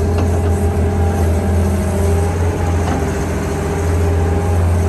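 Small electric pressure washer running steadily while it sprays the muddy toy, a deep motor hum under a hiss of water spray.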